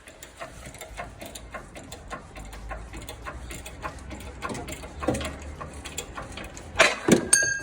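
Irregular mechanical clicking and creaking of a makeshift bushing press at work, with a louder knock about seven seconds in.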